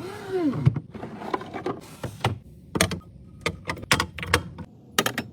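Food containers being handled and set down in a refrigerator: a brief squeak near the start, then a series of sharp knocks and clicks.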